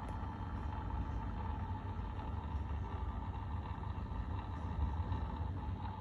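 Steady low background rumble with a faint continuous hum, unchanging throughout.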